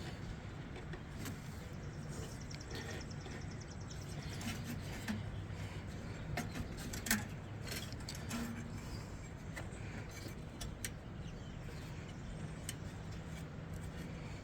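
Scattered light clicks and knocks of hand tools on metal lawnmower parts, with a quick run of fine, evenly spaced clicks about two seconds in, over a steady low hum.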